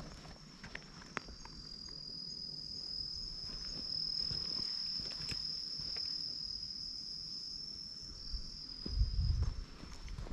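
An insect calling, one steady high-pitched buzz that swells through the middle and eases off near the end. Low thumps come about nine seconds in.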